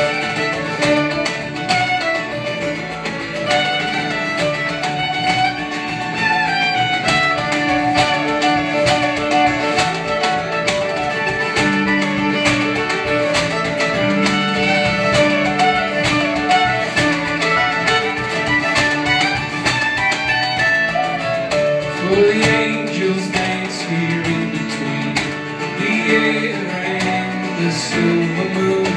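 Acoustic string band playing live: fiddle and acoustic guitar over mandolin and upright bass, with a steady strummed rhythm.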